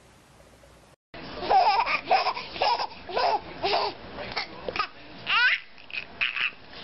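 Baby laughing in repeated giggles, starting about a second in, with a high rising squeal a little after halfway.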